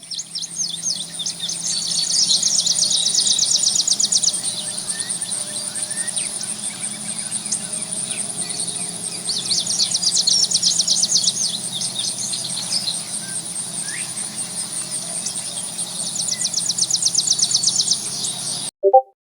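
Nature ambience of insects and birds: a steady high insect drone, with rapid trains of chirps that come in three bursts several seconds apart. The sound cuts off abruptly near the end.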